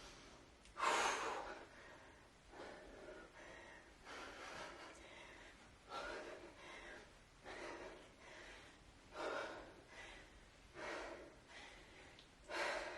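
A woman's forceful exhales during kettlebell swings, one short breath about every second and a half, about eight in all.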